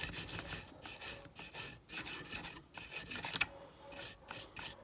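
Scrubbing strokes across the solder connections of a dishwasher's control board, cleaning dust off the joints before re-soldering; a quick run of short scratchy rubs with a brief pause about three and a half seconds in.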